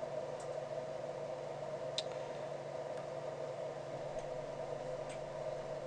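Steady low hum and hiss of a quiet room picked up by a desk microphone, with five faint computer-mouse clicks, the sharpest about two seconds in.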